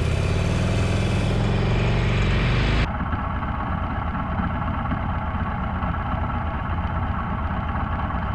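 Motorcycle engine running under way, its pitch rising slightly. About three seconds in the sound cuts abruptly to a steady low engine rumble of idling traffic at a standstill.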